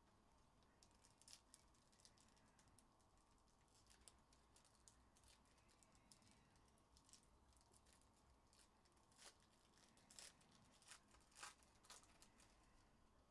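Near silence with faint, scattered clicks and taps from trading cards and foil packs being handled and sorted by hand. The clicks come a little more often and more sharply near the end.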